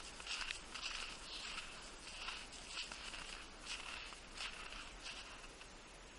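Footsteps crunching in snow, irregular at about two a second, dying away near the end.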